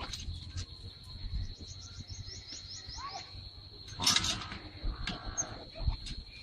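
Small birds chirping outdoors, with a quick run of rising chirps near the start, over a steady high insect drone. A short, loud rasping noise cuts in about four seconds in.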